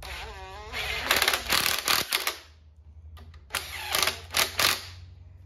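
Cordless impact wrench snugging engine main bearing cap bolts: the motor whines up briefly, then hammers in two bursts of rapid impacts about a second long each, the second starting about three and a half seconds in. The bolts are only being nipped up by hand-started feel, not yet torqued to spec.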